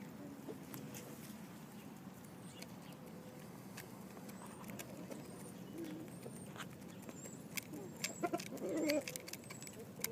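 Jersey Giant hens pecking grain from a feed bowl: quick, irregular taps of beaks on the feed and the bowl, with a short low hen call near the end that is the loudest sound.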